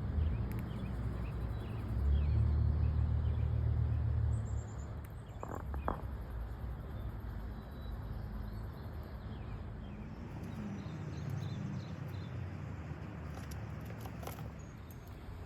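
Squirrel grinding its teeth and making faint chirping noises, with a few short clicks, over a steady low rumble that swells for a couple of seconds about two seconds in.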